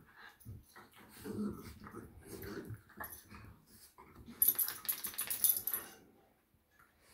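Small dogs growling and grumbling at each other as they wrestle in play. About four seconds in comes a louder burst of scratchy noise, then it quiets down near the end.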